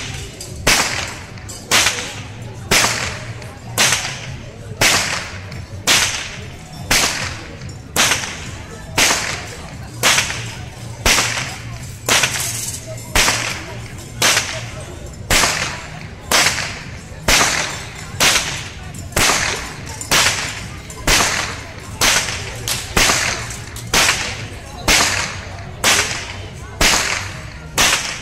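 A long carnival whip swung round overhead and cracked over and over in a steady rhythm, about one sharp crack a second.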